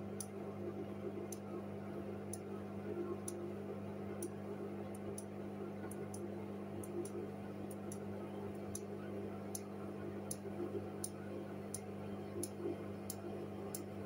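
Hoover front-loading washing machine running with wet laundry in the turning drum: a steady motor hum under a sloshing wash of noise, with light sharp clicks about once a second.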